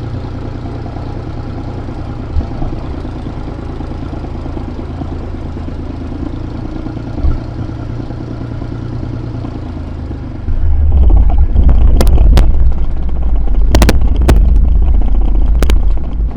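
Tractor engine running steadily, then clearly louder from about ten seconds in, with several sharp knocks or clatters near the end.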